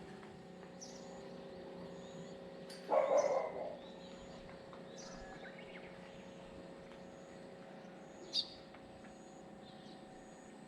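Outdoor ambience with birds chirping now and then over a faint steady hum. About three seconds in there is a louder short sound lasting under a second, and a sharp chirp near the end.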